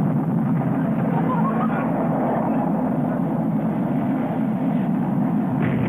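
A steady, low mechanical drone, like a motor or engine running.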